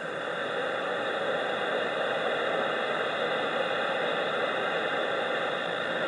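CB radio receiver hissing with steady static between transmissions, held at a constant level.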